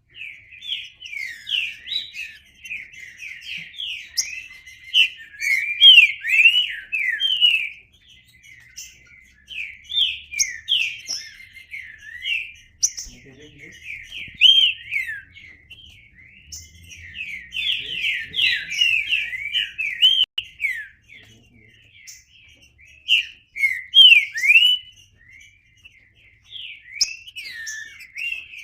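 Trinca-ferro (green-winged saltator) singing: a loud run of rapid, warbling, gliding notes, delivered in phrases several seconds long with short pauses between them.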